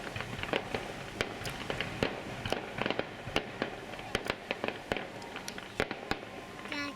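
Fireworks going off in a rapid, irregular series of sharp cracks and pops, several a second.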